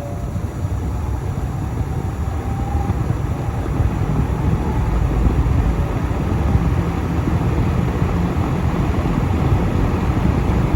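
Vintage 1970s Champion box fan with all-metal blades running on low speed: a loud, steady rush of moving air that grows louder over the first few seconds as the fan comes up to speed, then holds steady.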